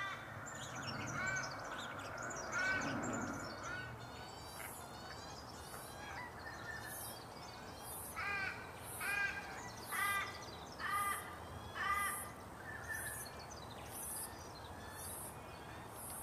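Dollarbirds calling: short, harsh, rasping calls, a few near the start and then a run of about one a second. Under them a cicada keeps up a high pulsing buzz, with faint chirps of other birds.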